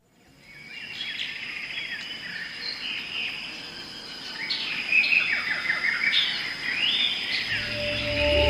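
Several birds chirping and trilling over a steady, high insect drone, fading in at the start. A low musical drone comes in near the end.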